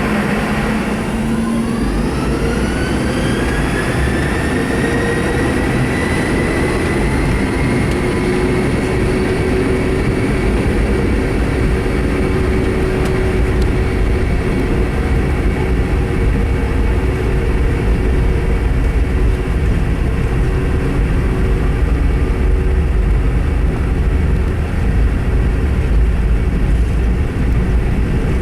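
Boeing 717's rear-mounted Rolls-Royce BR715 turbofans spooling up to takeoff thrust, heard from inside the cabin. A whine climbs over the first few seconds and then holds steady, over a deep rumble that grows as the takeoff roll gets under way.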